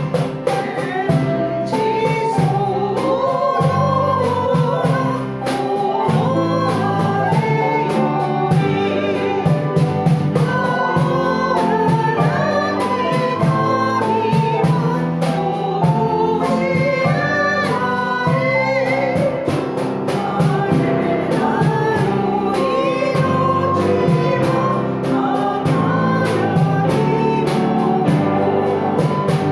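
Church congregation singing a hymn in chorus, with sustained chords from an instrumental accompaniment.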